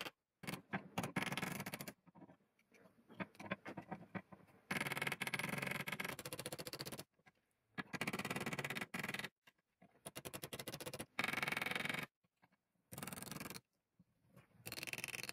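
Small hammer tapping a brass strip into shape against the steel tang and a vise-mounted steel block while forming a knife habaki, mixed with scraping of metal on metal. It comes in short bursts that cut in and out abruptly.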